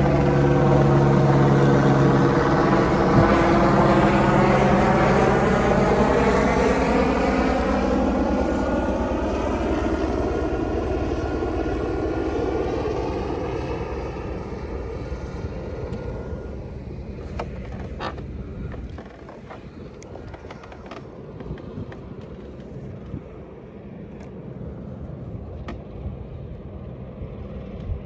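Loud engine drone from a passing motor, with a slowly sweeping, wavering tone, fading away over about twenty seconds. Several light clicks and taps follow near the end.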